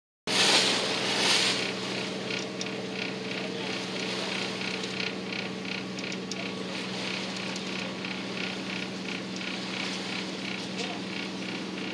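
A tour boat's engine heard on board, running steadily: a low hum with a regular mechanical ticking about three times a second, after a brief rush of noise at the start.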